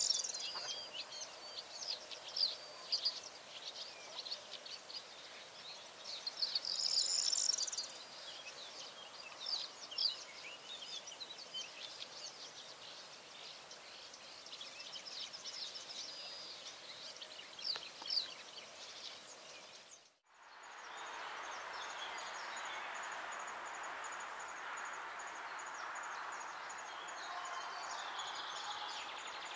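Many short, high bird chirps and peeps come one after another for most of the first twenty seconds. After a brief dropout they give way to a steady, buzzy chatter: great spotted woodpecker nestlings begging from inside the nest hole.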